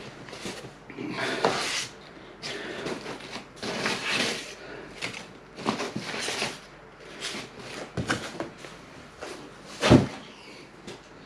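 Cardboard shipping box being handled and searched, with repeated rustling and scraping of cardboard and packing. A heavy thump comes near the end.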